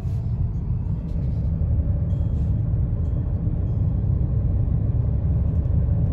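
Steady low rumble of a car driving along a road, heard from inside the car.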